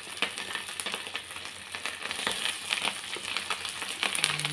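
Ulen, a pounded glutinous rice cake, sizzling and crackling as it deep-fries in hot oil in a wok. The crackles get denser through the second half.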